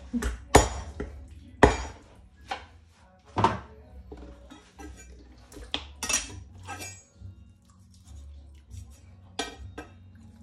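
Cleaver chopping raw duck against a wooden cutting board: several sharp knocks a second or more apart, the loudest in the first two seconds, with softer knife-and-board clatter between them.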